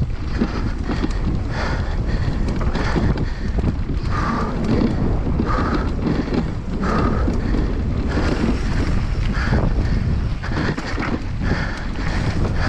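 Wind buffeting the microphone over the rattle and tyre noise of a downhill mountain bike descending rough ground. Several brief high squeals recur every second or so.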